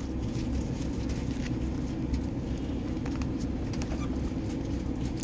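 Steady low rumble of a vehicle heard from inside its cabin, with a few faint clicks.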